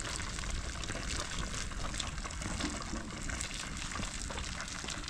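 A steady rush of water, dotted with many small drops and splashes.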